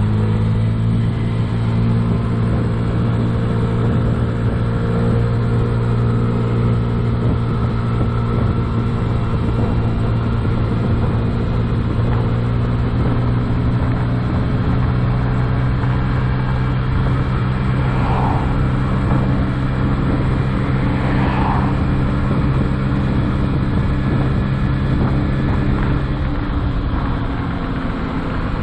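2007 Honda Ruckus 49cc four-stroke single-cylinder scooter engine running at a steady cruising pitch, with wind and road noise over it. Near the end the engine note drops away as the throttle is eased off.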